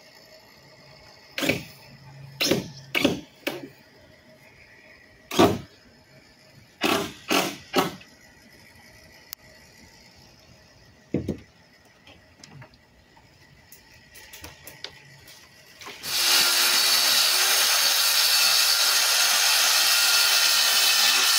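A series of scattered sharp knocks, then about three-quarters of the way through a handheld circular saw starts up and runs steadily, cutting through a plywood sheet. The saw is the loudest sound.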